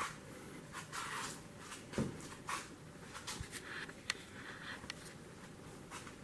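Faint handling noises: soft rustles, a dull thump about two seconds in, and a few light clicks.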